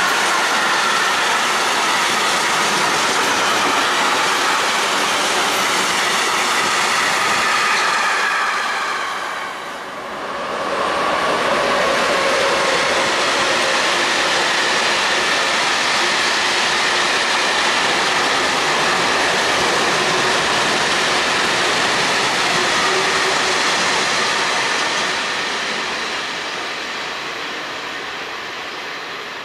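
Freight wagons rolling past on the rails, wheels clattering with a steady high squeal. The sound dips briefly about a third of the way in as one train's last wagons pass. A second freight train of hopper and silo wagons then keeps rolling by, fading near the end.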